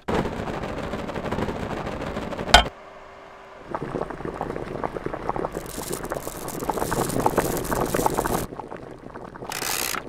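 Dubbed-in cooking sound effects for an electric hot plate: a steady noise ending in one sharp click a little over two seconds in as the knob is turned, then dense crackling like food sizzling in a hot pan for about five seconds.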